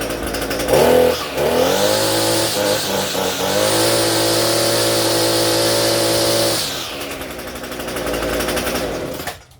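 Echo SRM-230 string trimmer's small two-stroke engine running: it idles, revs up to full throttle about a second in and holds there for several seconds, drops back to idle, then cuts off just before the end. It is running again on a newly replaced carburetor.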